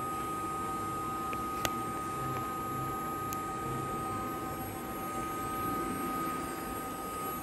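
Steady drone of running heavy machinery with a constant high whine over it, and a single sharp click about one and a half seconds in.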